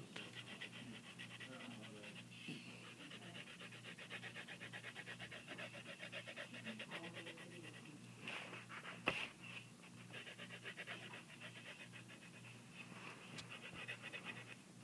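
Fast back-and-forth strokes of a colouring tool scratching across paper, filling in stripes, with a sharp click about nine seconds in and a faint steady hum beneath.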